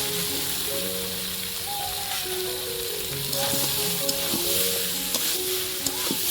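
Food sizzling as it fries in a pan, a steady hiss with a few small clicks, under a background tune of steady, stepping notes.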